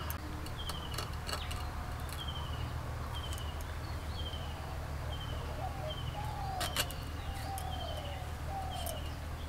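A bird repeating a short high falling chirp about every two-thirds of a second, with lower falling notes joining in the second half. Sharp snaps of drumstick pods being cut on a boti blade, the loudest one about two-thirds of the way through, over a steady low hum.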